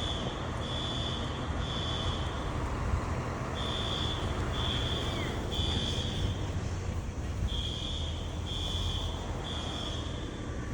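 Fire alarm sounding the high-pitched temporal-three evacuation pattern: three beeps, a pause, then three more, repeating about every four seconds, three times here. A steady low rumble runs underneath.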